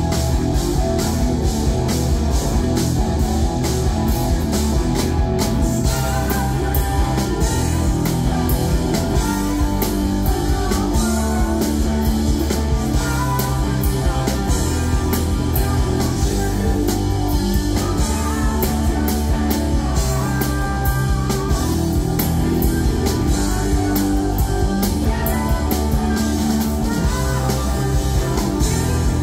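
Live rock trio playing: electric guitar over bass guitar and a drum kit, with the cymbals keeping a steady, even beat.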